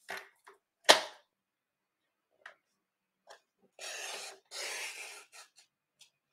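Stampin' Up! paper trimmer cutting designer paper: a sharp click about a second in, then the blade carriage rasping down the rail through the paper in two short strokes around the four- and five-second marks, with a few light ticks around them.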